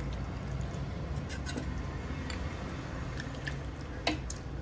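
Steel ladle stirring chicken pieces in gravy inside an aluminium pressure cooker: soft wet squishing with a few light clicks of the ladle against the pot, over a steady low hum.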